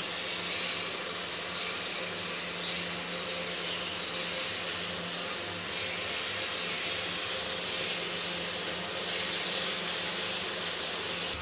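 Jalebi batter frying in hot oil in a kadai as it is piped in from a squeeze packet: a steady sizzling hiss.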